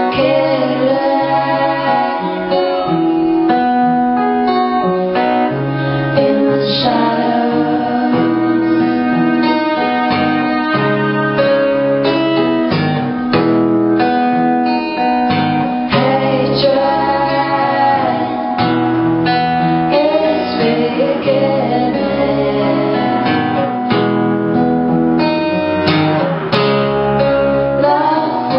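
Live folk-pop song: a woman singing over strummed acoustic guitar, with violin playing sustained, wavering lines.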